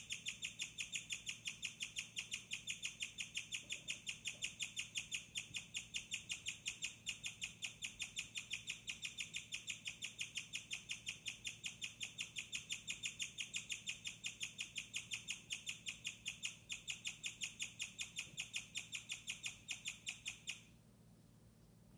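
Guinea pig chirping, a rare guinea pig call: a fast, steady run of high-pitched chirps, about five a second, that stops abruptly near the end.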